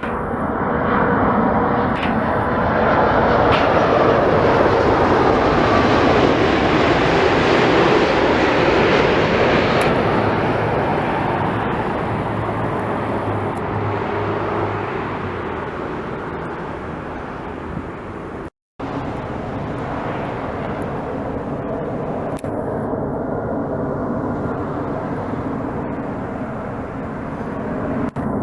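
Jet airliner engines passing close by, the noise swelling to a peak a few seconds in and then slowly fading. About two-thirds of the way through the sound cuts out for a split second, then steady jet noise carries on.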